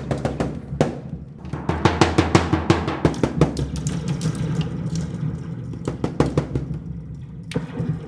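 Percussion music: fast drum strikes running into rolls, thickest about two to three seconds in, over a low held tone.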